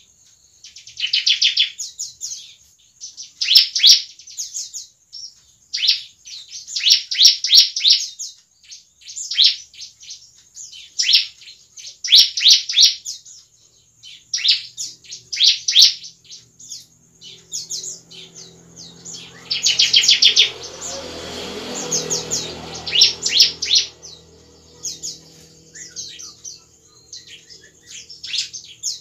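Bar-winged prinia (ciblek) singing: short bursts of rapid, high chirping, each about a second long, repeated every second or two. A low hum swells and fades under the song a little past the middle.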